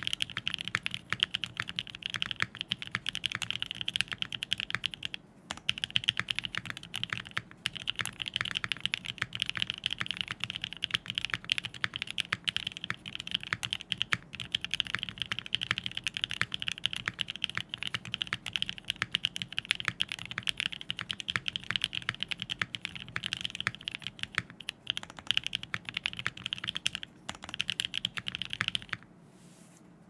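Fast, continuous typing on a custom mechanical keyboard with lubed, spring-swapped Black Cherry Pie switches in an FR4 half plate and GMK keycaps, a dense stream of keystroke clacks with a brief pause now and then. The typing stops about a second before the end.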